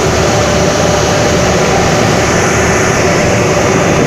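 A boat's engine running steadily: a loud, even drone with no breaks or sudden sounds.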